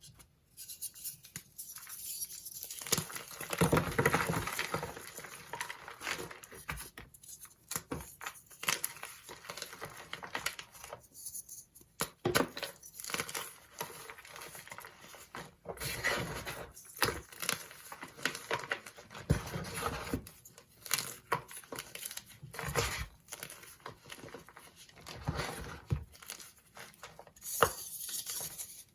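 Dyed gym chalk blocks being crushed and crumbled by hand, a dense crackling crunch that comes in bursts of a few seconds with short pauses between.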